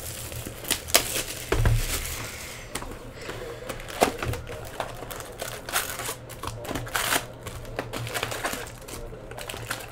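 Plastic shrink-wrap crinkling and tearing as it is stripped off a cardboard trading-card box, then the box being opened and its card packs handled, with many small clicks and crackles.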